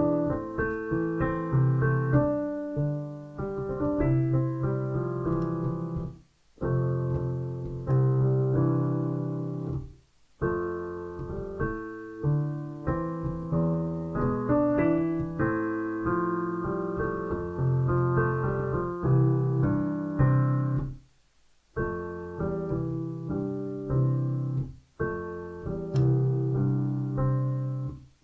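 Solo piano music, a run of chords and melody notes with brief pauses between phrases.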